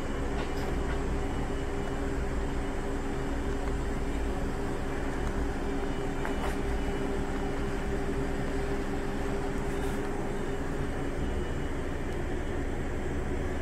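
Steady low rumble and hum of a standing freight train's idling diesel locomotive, the hum weakening near the end.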